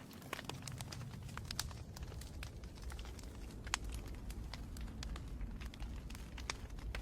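Fire crackling: irregular sharp pops and ticks over a low, steady rumble of the flames.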